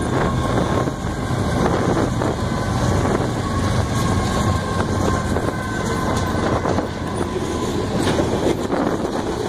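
A Union Pacific grain train passing at speed. Its mid-train diesel locomotives run past with a low engine hum that is strongest in the first few seconds, then the covered hopper cars follow with a steady rumble and wheels clicking over the rails.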